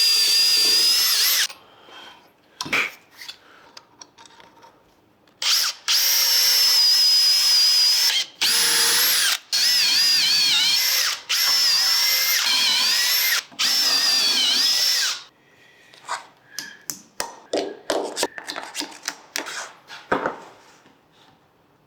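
Power drill run in about six bursts of one to three seconds each, its motor whine dipping in pitch as it bites, then lighter knocks and clicks of handling.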